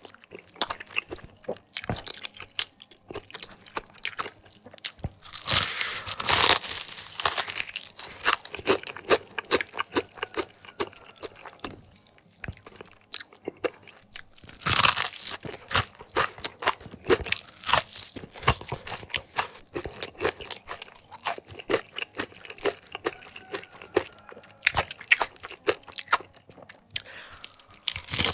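Crispy fried chicken crust being bitten and chewed close to the microphone: dense crackling crunches, with louder stretches of crunching about six seconds in and again about fifteen seconds in.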